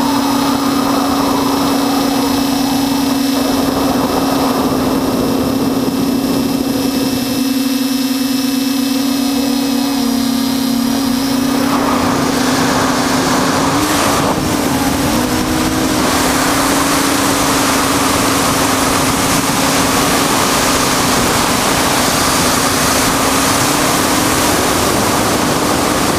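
Tricopter's electric motors and propellers buzzing at a steady pitch, heard from the onboard camera. A rush of wind on the microphone grows louder about halfway through, with a brief wobble in the motor pitch soon after.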